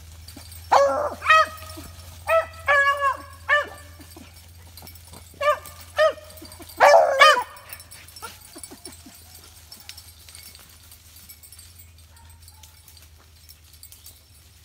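Beagles barking in clusters of short, pitched calls, two or more voices overlapping, for the first seven seconds or so, then falling quiet: rabbit-hunting hounds giving voice as they run a scent trail.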